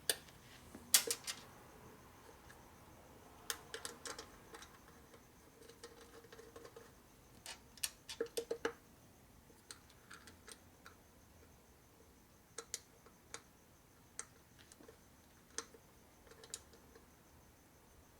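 Scattered metallic clicks and clinks as small hex bolts and metal plates are handled and fitted onto a motorcycle engine case, with a brief cluster of clicks about eight seconds in.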